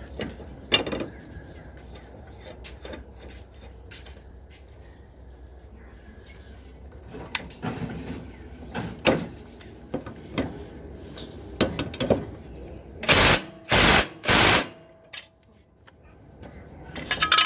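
Scattered metal clinks and knocks of tools working under a riding mower's deck, then near the end three short, loud bursts of a power tool, most likely an impact wrench on the blade bolts, with another burst starting at the very end. Loud.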